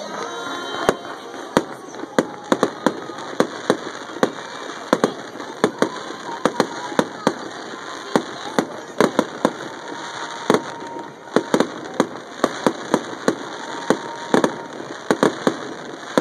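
Aerial fireworks bursting: a rapid, irregular string of sharp pops and crackles, several a second, over a steady background hiss.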